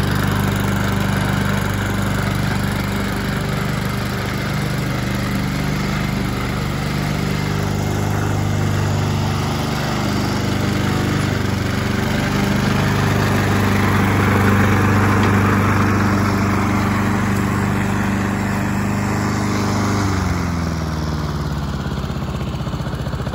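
Honda Harmony II walk-behind lawn mower's single-cylinder engine running steadily as the mower is pushed across the grass. About 20 seconds in the engine's pitch drops and it winds down as it is shut off.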